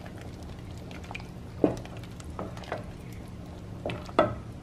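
Wooden spoon stirring a chunky tomato and vegetable soup base in a stainless steel pot, with a few sharp knocks of the spoon against the pot, over a steady low hum.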